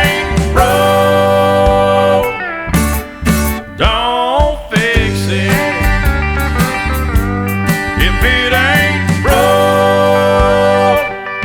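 Country music instrumental break: long sliding steel guitar lines over guitar, bass and a steady drum beat.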